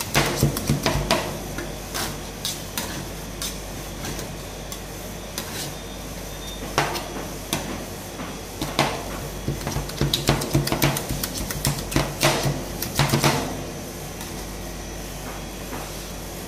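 Two metal spatulas chopping and scraping on a stainless steel cold plate, a clatter of metal-on-metal strikes in clusters, as Kit Kat is chopped into the cream base for rolled ice cream. The strikes are heaviest from about ten to thirteen seconds in, then ease off, over a steady low hum.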